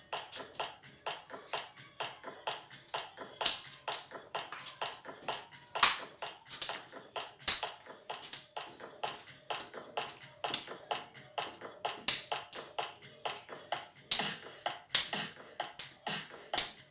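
Dance song with a fast, steady beat of sharp percussion hits, about two to three a second, and little melody audible under them.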